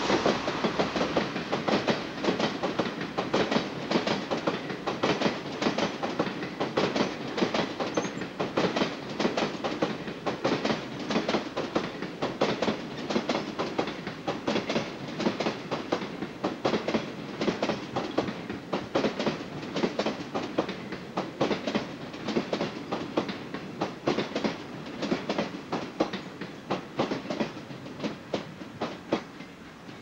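Long train of sleeper coaches of the limited express Fuji passing over the crossing, its wheels clattering rhythmically over the rail joints. The clatter eases slightly near the end as the last coach goes by.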